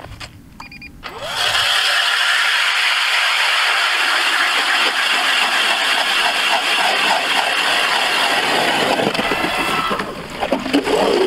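Powered ice auger boring a hole through the ice: the motor spins up about a second in, then runs steadily with ice chips being cut and thrown, and stops about a second before the end.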